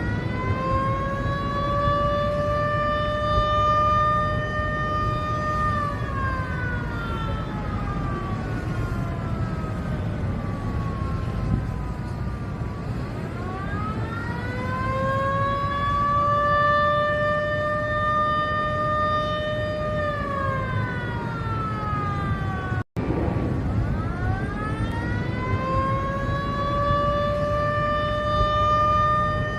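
Civil-defence warning siren sounding a slow wail: each cycle climbs quickly, holds a steady pitch for about five seconds, then slides slowly down, repeating about every eleven seconds. The sound cuts out for an instant about 23 seconds in, over a steady low rumble.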